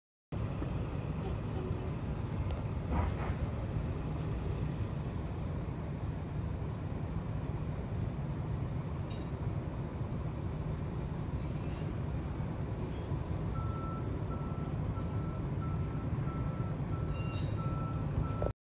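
Tractor-trailer's diesel engine running with a steady low rumble as the rig backs up; about two-thirds of the way through, a reversing alarm starts beeping, about two beeps a second.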